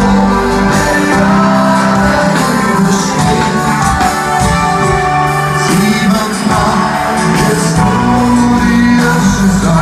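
A live band playing a song with singing, heard through the stage sound system from within the audience.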